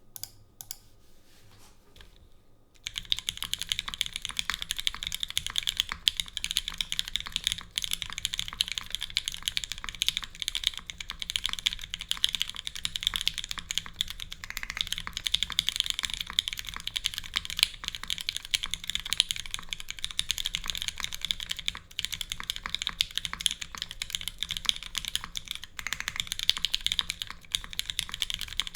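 Continuous fast typing on a custom mechanical keyboard with lubed and filmed Gateron Minks switches, a full aluminium plate with no foam dampening, and GMK keycaps. It starts about three seconds in, after a few isolated key clicks.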